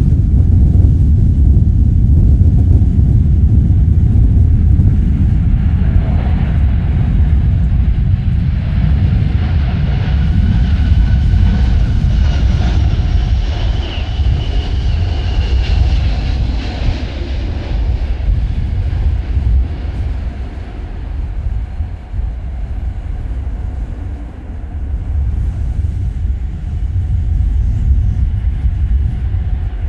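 Gusty wind buffeting the microphone in a steady low rumble, under the engine whine of a jet airliner on landing approach in a strong crosswind. The whine swells about a third of the way in, peaks around the middle and fades away.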